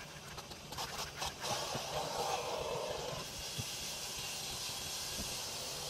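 Steam cleaner hissing steadily, starting about a second and a half in after a few clicks of handling.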